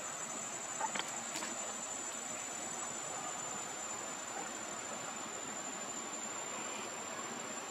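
Insects giving a steady high-pitched drone over an even outdoor hiss, with two brief sharp ticks about a second in.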